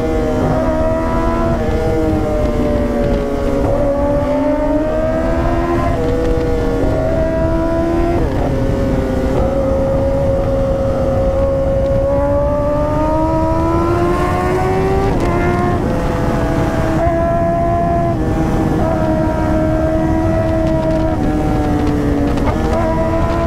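Kawasaki ZX-10R sportbike's inline-four engine running at highway speed, its pitch rising and falling gently with the throttle and climbing around fourteen seconds in. Heavy wind rumble from riding fast runs under it.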